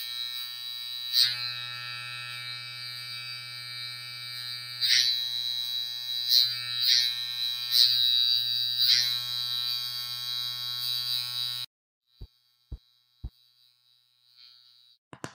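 Cartoon hummingbird's wings buzzing: a steady electric-sounding buzz that swells louder several times and cuts off suddenly after about twelve seconds. Three short low thuds follow, and a quick run of taps starts near the end.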